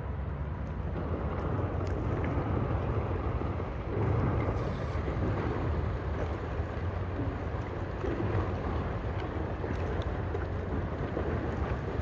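Large car carrier ship passing close by: a steady low drone from the ship, mixed with the noise of its bow breaking through thin ice on the water.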